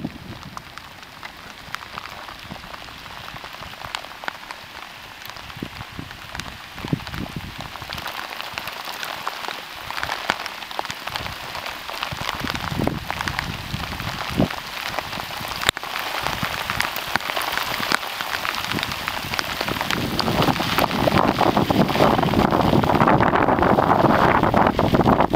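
Rain falling on a river's surface, a steady patter of many small drops that grows louder toward the end.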